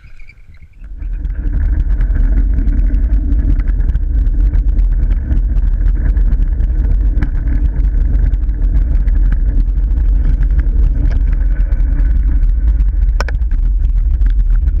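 Steady low rumble of wind buffeting the microphone and a drift trike's hard wheels rolling fast on asphalt, picked up by a camera mounted on the trike. It comes in about a second in, with small ticks scattered through it.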